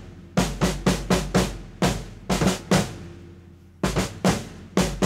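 Drum kit played in an even, straight pattern of about four strokes a second, sticks on snare and hi-hat alternating with the bass drum. It stops briefly about halfway through, then starts again.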